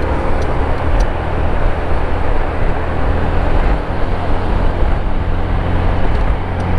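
Onboard riding noise from a motor scooter moving through traffic: a steady rush of wind and road noise with a heavy low rumble and the faint hum of the engine underneath.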